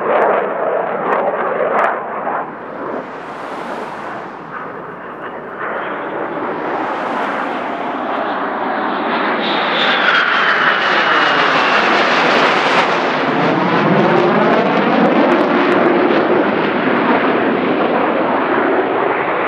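Lockheed Martin F-22 Raptor's twin Pratt & Whitney F119 turbofans in flight: loud jet noise with a crackle in the first couple of seconds, easing, then swelling again as the jet passes close, with a falling whine about halfway through.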